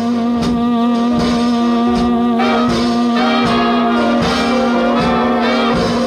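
1947 jazz and R&B band recording from a 78 rpm record: the horn section plays chords over a long held low note, with a steady beat of about two strokes a second.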